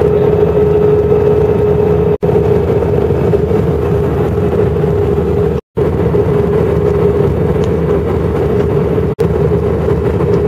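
Jet airliner cabin noise from a window seat over the wing: steady engine and airflow noise with a steady hum. The sound drops out briefly three times, about two, five and a half and nine seconds in, the middle gap the longest.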